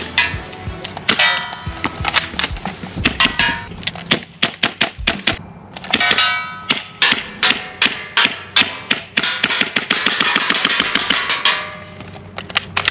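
Gas blowback airsoft rifle firing sharp shots and a fast burst in the middle, with music playing underneath.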